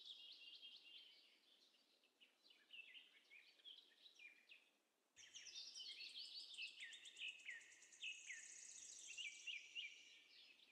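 Faint chirping of small birds, many quick high notes overlapping; it thins out for a few seconds, then turns busier again about five seconds in.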